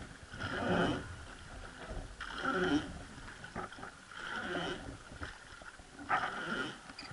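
Rhythmic oar strokes on a wooden river boat, four in all, about one every two seconds: the wooden oar creaking as it pulls, with the blade splashing through the water.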